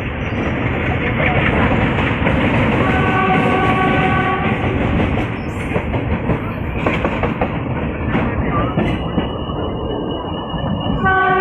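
ALCO WDM3A diesel-electric locomotive running under power with a heavy continuous rumble, its horn sounding once for under two seconds about three seconds in. Sharp clicks of wheels over rail joints come through around the middle.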